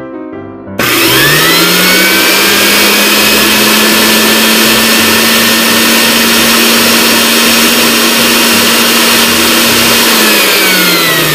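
Barbie toy vacuum cleaner's small electric motor switched on: it whines up to speed about a second in, runs with a steady loud whir, then winds down with a falling whine near the end.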